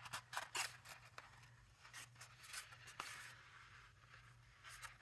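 Faint handling of cardstock: scattered light clicks and taps with a soft rustle of the paper being folded and unfolded, over a steady low hum.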